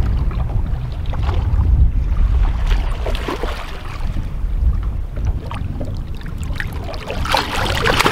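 A hooked paddlefish splashing and thrashing at the water's surface beside the boat, briefly about three seconds in and again more strongly near the end, over a steady low rumble of wind on the microphone.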